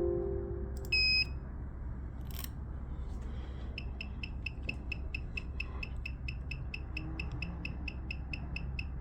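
AK90+ key programmer beeping while it reads a BMW EWS3 immobiliser module. There is one short high beep about a second in, then from about four seconds a fast, even run of short high beeps, about five a second. This beeping is the sign that the programmer is reading the module.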